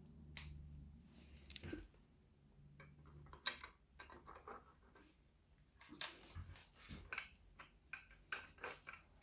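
Lego plastic pieces being handled and pressed together: light, scattered clicks at irregular intervals.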